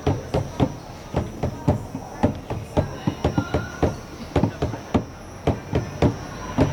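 Hand drums beaten in an uneven group rhythm, about three or four strikes a second.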